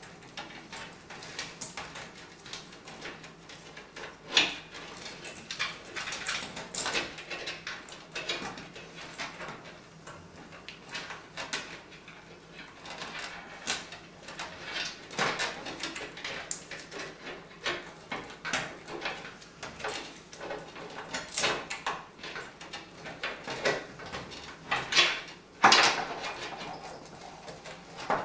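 Power-supply cables and their plastic connectors being handled and pushed through and behind a PC case's motherboard tray: irregular clicks, scrapes and rustles, with a louder clatter near the end.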